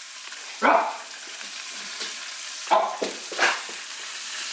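Coated crappie fillets frying in hot vegetable oil, with a steady sizzle. Three short, loud vocal barks cut through it, one about a second in and two close together near the end.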